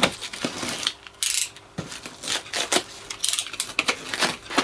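A hand blade cutting and prying through a hardened plaster scenery shell, making irregular scrapes, cracks and clicks as pieces break away, with a longer scrape about a second in.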